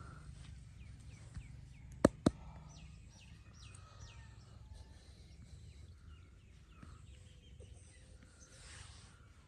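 Two sharp cracks about a quarter second apart, about two seconds in, typical of joints being cracked during the massage. Small birds chirp in quick runs against a steady low background hum.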